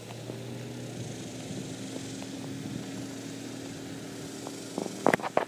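A steady engine or motor hum holding one low tone, then a few loud, sharp knocks just before the end.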